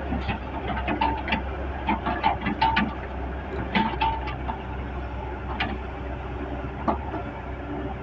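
Hitachi excavator working: its diesel engine runs steadily underneath a string of sharp metallic clanks and short squeals, thickest in the first half.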